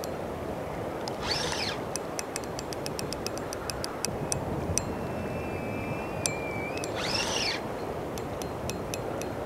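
Steady rush of fast-flowing tidal current, with runs of quick, even ticking from a spinning reel being cranked to retrieve a jigged shad lure. Two short rising-and-falling squeals cut through, about a second and a half in and about seven seconds in.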